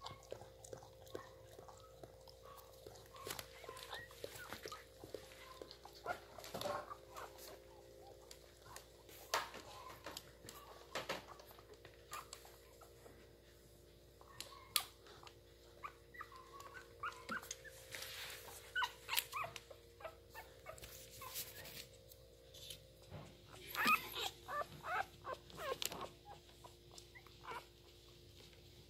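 Newborn puppies squeaking and whimpering in many short, high calls, scattered throughout, over a steady low hum.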